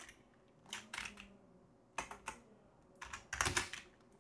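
Typing on a computer keyboard: a few short bursts of keystrokes, the longest and loudest about three seconds in.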